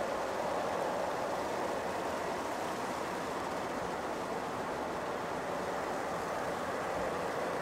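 Boeing 767-300's jet engines running at idle, a steady whooshing hum with no change in level.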